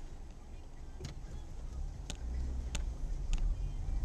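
Low rumble of a car driving, with a few sharp clicks scattered through.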